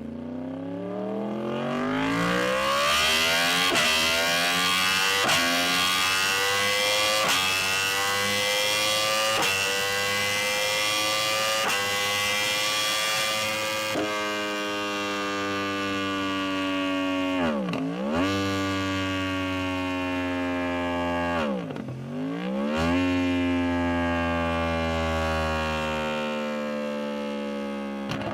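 Kawasaki ZX-25R's 250 cc inline-four engine revving hard as the bike accelerates. Its pitch climbs steadily for about half the time with brief breaks, then holds high and sags slowly. Twice in the second half the revs drop sharply and climb straight back.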